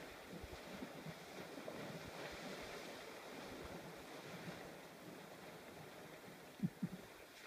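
Faint outdoor ambience of wind on the microphone and distant water sloshing as elephants wade and bathe in a waterhole. Two short low thumps come near the end.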